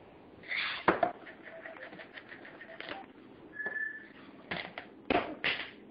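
Sharp knocks and rattling clatter of a blue-and-gold macaw working at a treat container and its lid. A loud knock comes about a second in and two more near the end, with a brief high whistle about three and a half seconds in.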